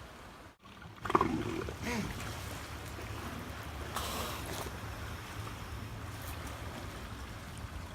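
Elephant seal giving a short call with a wavering pitch about a second in, then a short breathy blast about three seconds later, over steady surf.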